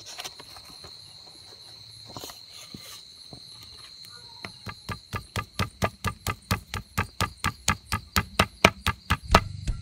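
A knife chopping raw fish flesh on a thick wooden chopping block, mincing it in rapid, regular strikes, about four a second, that start about halfway through and grow louder. Before the chopping, a steady high insect trill.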